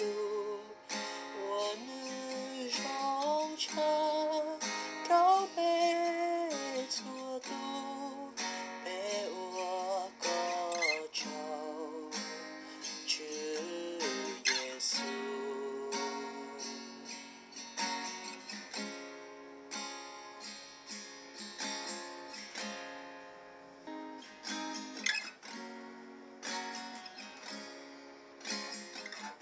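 Acoustic guitar with a capo on the first fret, strumming chords.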